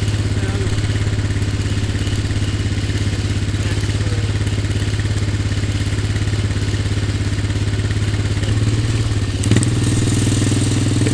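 Four-wheeler (ATV) engine idling steadily, its note rising a little near the end as it starts to pull, with one sharp thump about nine and a half seconds in.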